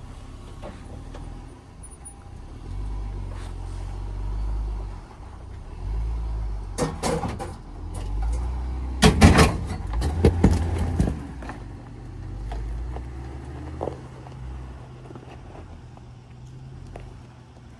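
A vehicle running, with a steady low engine and road rumble. A cluster of loud knocks and rattles comes about halfway through.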